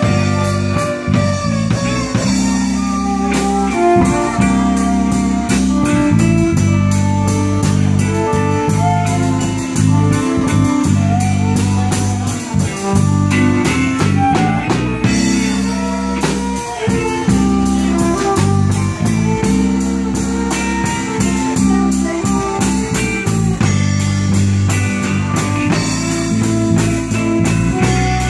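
Live blues-rock band playing an instrumental passage: electric guitar over a drum kit, with a steady beat.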